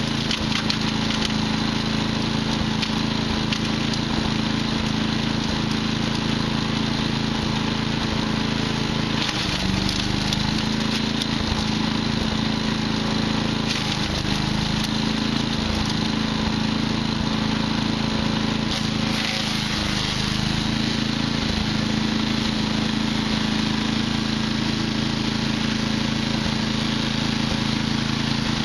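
Patriot wood chipper's small engine running steadily at a constant speed, with a few brief changes in its sound partway through.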